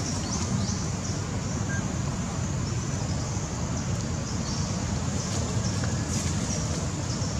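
Outdoor ambience: a steady, fluttering low rumble of wind on the microphone, with short high chirps scattered throughout.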